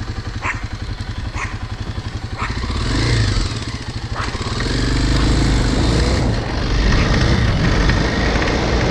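Motorcycle engine idling with an even, rapid beat, then pulling away from about three seconds in, the engine note rising and staying louder as the bike accelerates.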